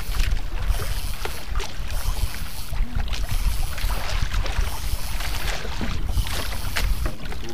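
Wind buffeting the microphone and sea water splashing and lapping against the hull of a small outrigger fishing boat, a steady low rumble with irregular splashes.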